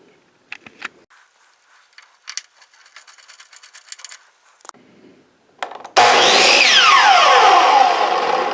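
A few light clicks and taps, then about six seconds in the DeWalt miter saw's electric motor starts loud and abruptly, its whine falling steadily in pitch as the blade winds down. This is a test run of the saw on its newly fitted power cord.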